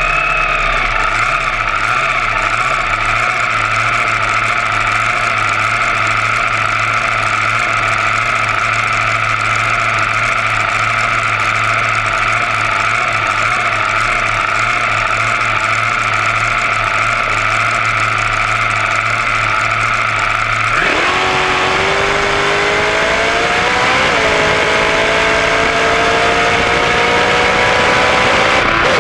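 Dragster engine idling steadily, then launching at full throttle about three-quarters of the way in: the pitch climbs, dips once at a gear change, and climbs again.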